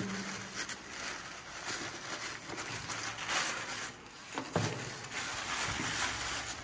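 Thin plastic wrapping crinkling and rustling in uneven bursts as it is pulled out of a cardboard box and unwrapped by hand.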